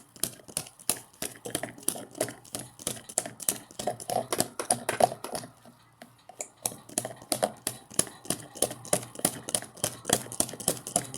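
Washing machine in its spin cycle, giving off a rapid, irregular clicking rattle of several clicks a second, with a short pause about six seconds in.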